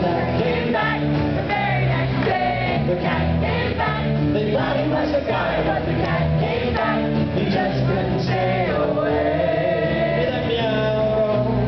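Acoustic guitar strummed with a man singing into a microphone, a live folk song.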